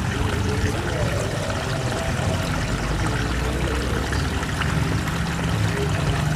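Steady rushing and trickling of a shallow river flowing.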